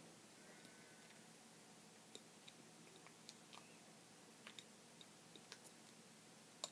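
Homemade slime being handled, giving faint, irregular little sticky clicks and pops over near silence, with a sharper pop near the end.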